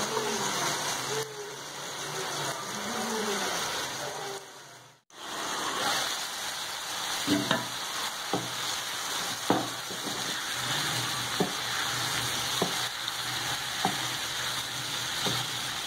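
Chicken livers sizzling steadily in oil on a tawa griddle pan. The sound drops out briefly about five seconds in. In the second half, a wooden spatula stirs the livers and knocks against the pan about once a second; they are nearly cooked.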